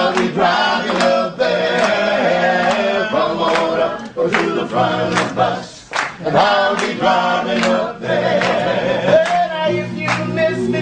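A choir singing a song.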